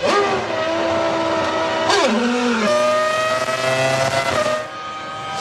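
1998 Formula One car's V10 engine running at high revs, its high-pitched note rising at the start, dropping sharply about two seconds in, then climbing and holding before falling again near the end.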